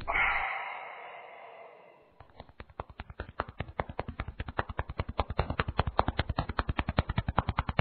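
An exhaled breath of cigarette smoke, fading out over about two seconds, then a long run of quick, evenly spaced cartoon footstep clicks, about eight a second, for a character walking.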